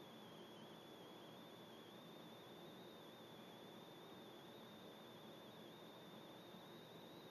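Near silence: faint steady hiss with a thin, high, steady whine that wavers slightly in pitch.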